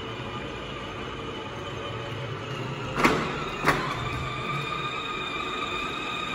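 Battery-powered children's ride-on jeep (Pilsan) driving along: a steady electric motor and gearbox whine, with two sharp knocks about three seconds in.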